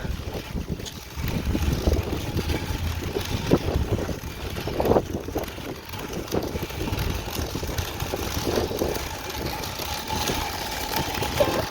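Steady low rumble of vehicle engines and traffic, with a few scattered knocks.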